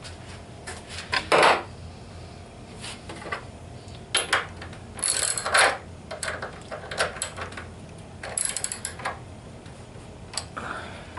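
Metal tools and hardware clinking, knocking and scraping at irregular moments while a bench vise's mounting bolts are being tightened.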